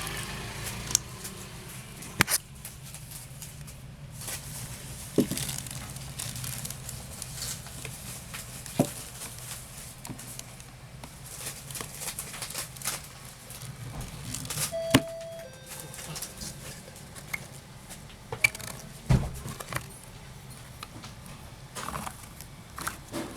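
Handling noises from an antique bisque doll and its clothes: scattered light clicks and knocks with soft rustling, over a low steady hum that fades about halfway through.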